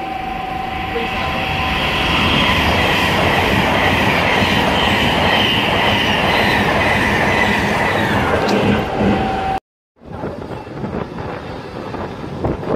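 Class 390 Pendolino electric train passing at 125 mph: a loud rush of wheels and air that builds over the first two seconds, then holds steady with a high hiss, and cuts off abruptly about ten seconds in. After the cut, a Class 153 diesel railcar pulls away, quieter.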